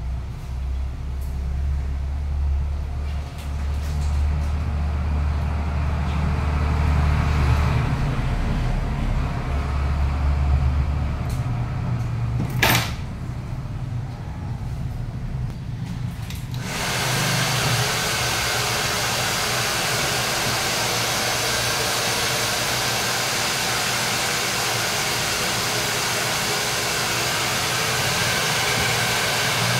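Handheld hair dryer switched on a little over halfway through, then running steadily, blowing on wet hair. Before it comes a low rumble and a single sharp click.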